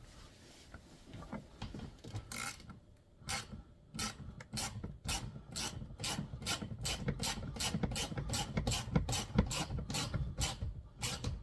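Ratchet wrench tightening the mounting nut of a car's shark fin roof antenna from inside the cabin: short rasping ratchet strokes, about three a second, beginning about two seconds in.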